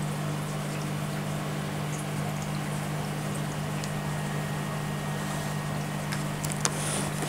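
Steady low hum and water noise of running aquarium equipment, with a few faint clicks near the end.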